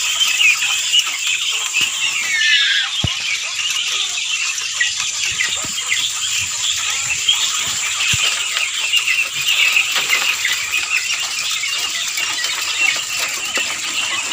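A cage-full of Japanese quail calling all at once: a dense, continuous chatter of short high chirps, with one longer falling call about two to three seconds in.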